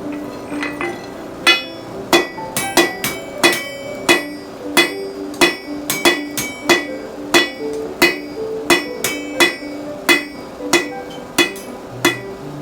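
Blacksmith's hammer striking steel on an anvil, about two blows a second with a bright metallic ring, starting about a second and a half in. Background music plays underneath.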